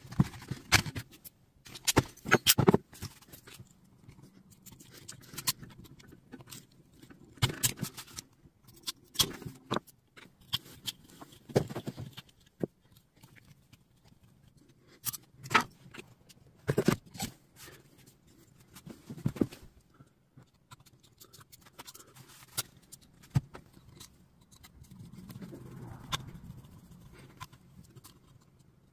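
Irregular clicks, taps and light clatter of plastic battery-casing parts, metal terminals and small tools being handled as a replacement circuit board is fitted into a cordless tool battery pack.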